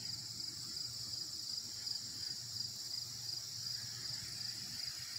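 Steady high-pitched chorus of insects such as crickets, trilling with a fine, fast pulse.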